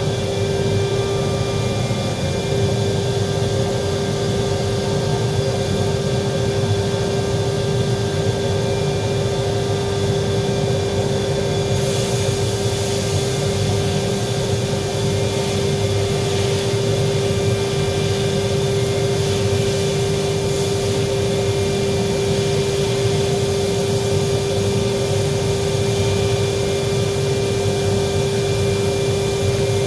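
A power tool's electric motor running steadily with a constant high whine over a rumbling roar, the whine having just spun up to speed; about twelve seconds in, a brighter hiss joins it and carries on.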